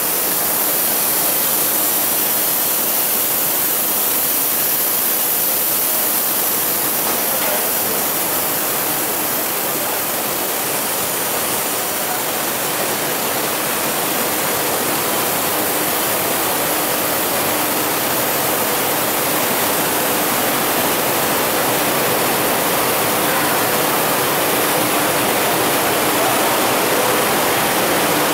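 Steady, loud rushing noise of industrial machinery and air handling in a printing pressroom, even with no beat or clatter, under a faint low hum.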